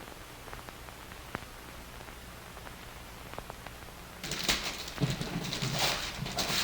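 Wrapping paper rustling and tearing as a present is unwrapped, starting about four seconds in after a few faint clicks.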